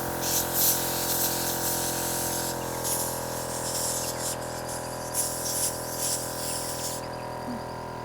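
Water rushing and splashing in uneven surges over a steady mechanical hum. The surging eases off about a second before the end.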